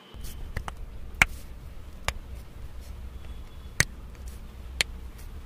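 Spinal joints cracking during a seated chiropractic adjustment: four sharp cracks, the loudest about a second in, with others near two, nearly four and about five seconds in, over a low rumble.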